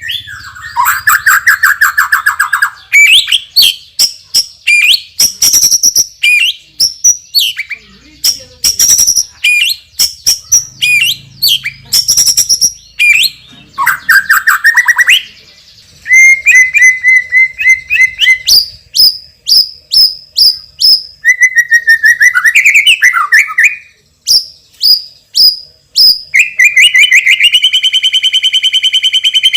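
A white-rumped shama singing loudly: a fast, varied run of whistles, sharp chips and rapid trills, including mimicked phrases, with a long buzzy rattling trill near the end.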